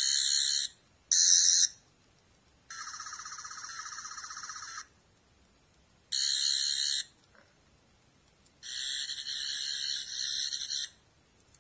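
Toy Eleventh Doctor sonic screwdriver playing its electronic buzzing sound effect in five bursts, each from under a second to about two seconds long; the third burst is quieter and pulses.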